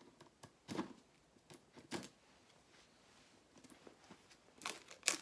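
Gamepad packaging being torn open by hand: scattered short crinkles and rips, bunching together near the end.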